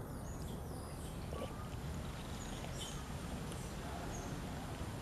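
Outdoor ambience: a steady low rumble of background noise, with faint short high chirps repeating about every half second in the second half.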